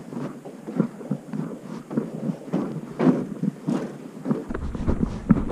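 Footsteps on a wooden plank boardwalk, a steady walking pace of about two to three knocks a second. Wind begins rumbling on the microphone near the end.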